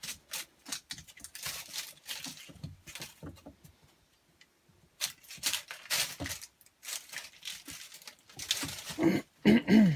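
West Siberian Laika puppies moving about, with irregular rustling and scratching noises and a short pause partway through. A brief pitched puppy cry, falling in pitch, comes near the end.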